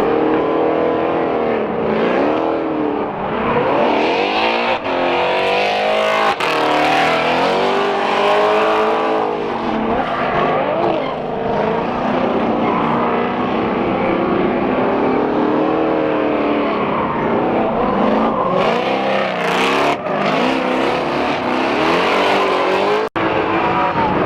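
Drift cars' engines revving hard, their pitch rising and falling over and over, with some tyre squeal, in several short clips cut together.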